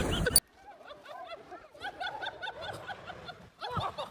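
A loud rush of noise cuts off abruptly about half a second in. It gives way to a person giggling in quick, repeated bursts, several a second, with a louder burst near the end.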